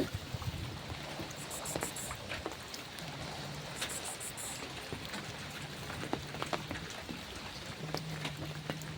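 Steady rain falling, with scattered sharp drips and ticks of drops striking a surface.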